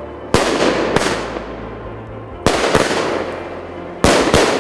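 Aerial fireworks bursting overhead: six sharp bangs, roughly in three pairs, each dying away over about a second.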